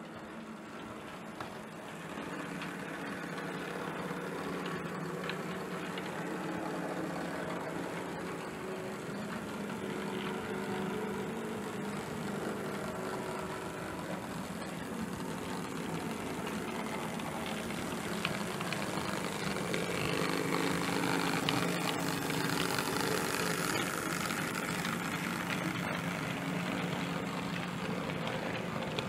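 Sound-fitted model diesel locomotive running with its engine sound, growing louder as the train draws near, over the rumble of model wagon wheels on the track.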